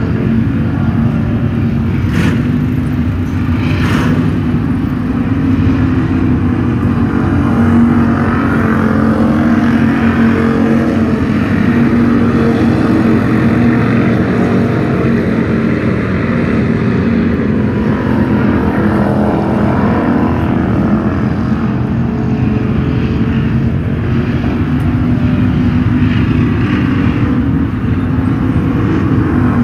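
Dirt-track Hobby Stock race car engines running around the oval, the steady drone swelling and easing as the cars circle.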